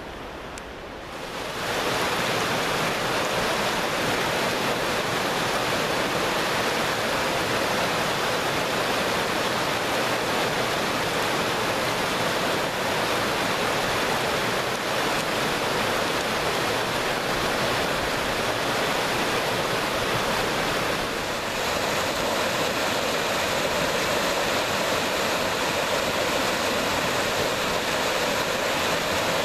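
Mountain stream rushing over boulders and small cascades: a steady wash of white water that comes in about a second and a half in. Its sound shifts slightly about two-thirds of the way through.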